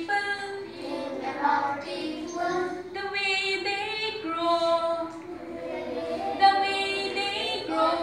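Children and a woman singing a rhyme-like English song together, in sustained notes that move in steps.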